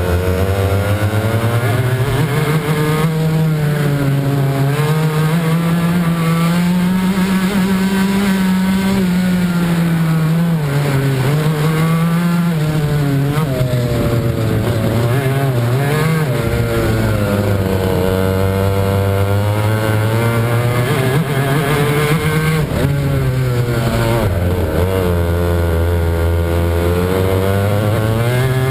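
Club 100 racing kart's two-stroke engine heard onboard at race speed, its pitch rising on the straights and dropping several times as the driver lifts and brakes for corners.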